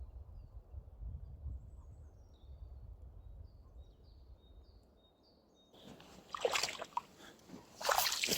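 Water sloshing and splashing in irregular bursts, starting about six seconds in and loudest near the end. Before that, a low rumble with faint, repeated short bird chirps.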